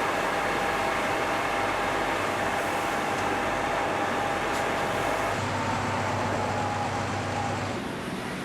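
Steady engine noise under a rushing hiss, with faint steady tones; the sound changes abruptly about five seconds in.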